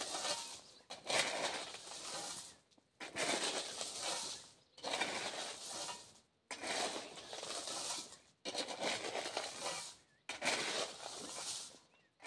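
Shovel scraping and pushing gravel in repeated strokes, about one every one and a half to two seconds, each a rush of scraping stones that fades out, as loose stone is pulled from the verge back into the wheel ruts of the road.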